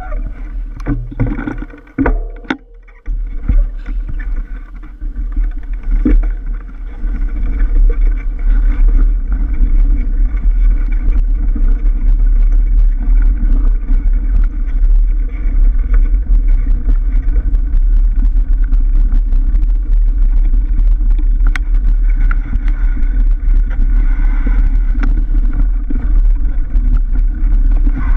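Wind rumbling on the microphone of a camera carried along on a mountain bike ride down a dirt forest trail, with tyre noise and the rattle of the bike over the bumpy ground. It is broken for the first few seconds, then becomes steady and louder.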